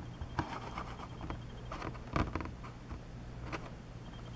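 Handling noise from a pocket-size plastic football helmet being turned on a tabletop: scattered light taps and rubs, with one louder knock about two seconds in, over a faint steady low hum.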